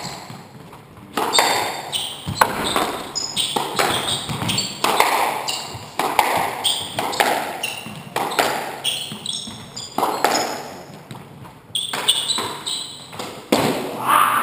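Squash rally: the ball cracking off rackets and the court walls about once a second, each hit echoing in the court, with rubber shoes squeaking on the wooden floor between hits. The hits stop near the end as the rally finishes.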